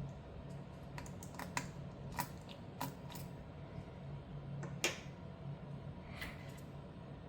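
Irregular light clicks and taps of a screwdriver and small screws on a graphics card's metal cooler and backplate, over a low steady hum. The loudest click comes about five seconds in.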